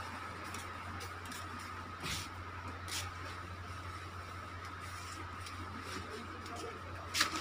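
Shop room tone: a steady low hum and a thin steady high whine, with a few soft rustles or clicks. A quick cluster of sharp clicks comes near the end.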